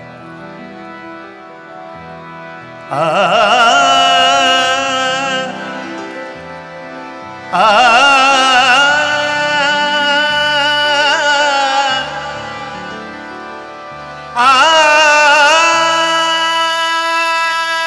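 A male singer holds three long, ornamented vocal phrases with wavering pitch, about three seconds in, in the middle and near the end, over sustained harmonium chords.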